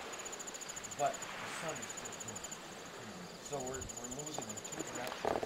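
An insect in the grass chirping high and fast, in trains of rapid pulses about a second long that repeat every couple of seconds. Faint distant voices come through now and then.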